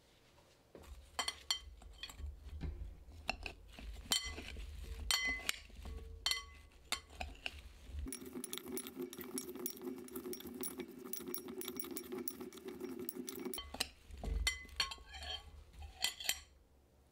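Two metal spoons clinking and scraping against a glass mixing bowl as raw potato wedges are tossed in spices, in quick irregular clinks, with a steadier stretch of mixing noise in the middle.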